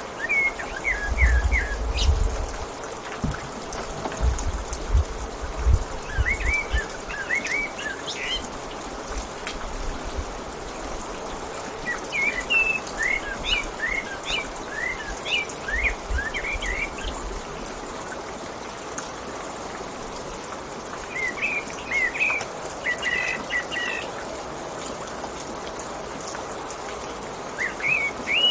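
Steady patter of rain with songbirds chirping in short bursts of quick rising notes every few seconds. Dull low thumps come in now and then, mostly early on and once near the middle.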